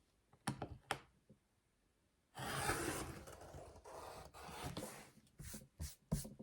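Fabric being trimmed and handled while the ragged edge of a pieced quilt block is neatened. A few light handling clicks come first, then a rasping cut along the fabric lasting a couple of seconds, then more taps and handling noise.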